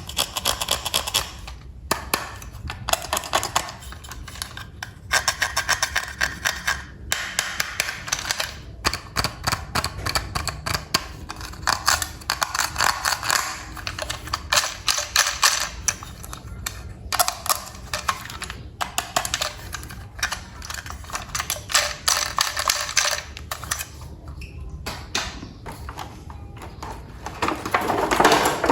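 Plastic parts of a toy train set clicking and rattling in rapid bursts, each lasting a second or two with short pauses between, and a louder burst near the end.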